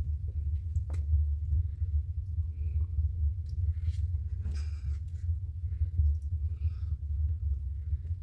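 A steady low rumble, with a few faint clicks and rustles from a juice carton and drinking glasses being handled, and a sharp click at the very end.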